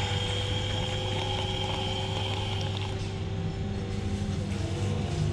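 Costa coffee vending machine running as it dispenses milk and coffee into a plastic cup: a steady mechanical hum with a few steady tones, and a high tone among them that stops about three seconds in.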